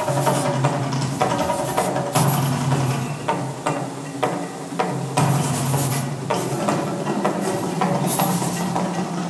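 Percussive show music with a steady low drone underneath and sharp hits every second or two, playing to accompany a fire show.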